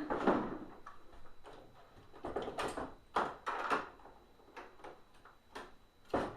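Irregular clicks and knocks of the plastic parts of a Hoover SteamVac carpet cleaner being handled and pulled apart during disassembly.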